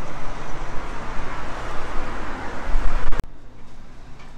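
Street traffic noise with a heavy low rumble. It cuts off abruptly with a click about three seconds in, leaving quiet room tone.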